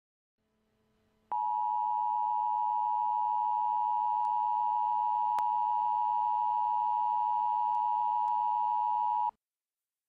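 Emergency Alert System attention signal: a steady two-tone alarm that comes in about a second in, holds for about eight seconds and cuts off suddenly. It announces a tornado warning.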